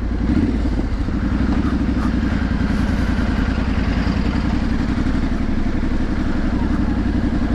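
Triumph Street Scrambler 900's parallel-twin engine running at low, steady revs in town traffic. Its pulsing exhaust note rises a little at the start, then holds even.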